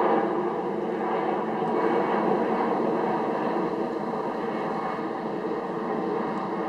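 Airbus A400M's TP400 turboprop engines and propellers running, a dense steady drone that slowly fades. Only three of the four engines are turning; number 3 is stopped.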